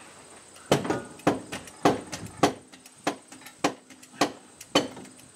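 Hydraulic engine crane being jacked up with its pump handle: a sharp metallic clack on each stroke, about every half second, starting about a second in.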